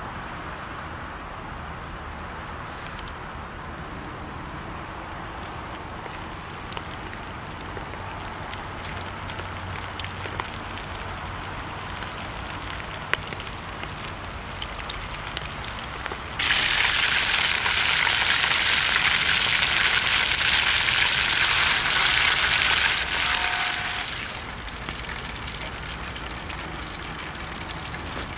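Food sizzling loudly in hot oil. The sizzle starts abruptly a little past halfway and fades out about seven seconds later, over a quiet background with a few faint clicks.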